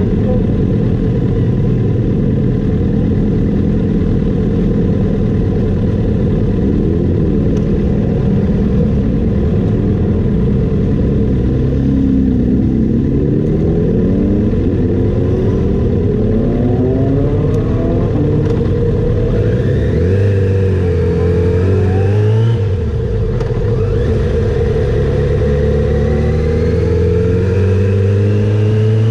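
Kawasaki ZX7R's inline-four engine running steadily at low revs, then revved up and down as the bike moves off, and rising in pitch as it accelerates near the end.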